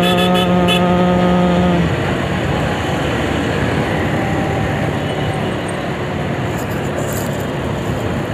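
A man's voice holds a sung note that ends about two seconds in. After that comes the steady rush of riding a Suzuki scooter in traffic: wind on the microphone, tyre and road noise, and the small engine running.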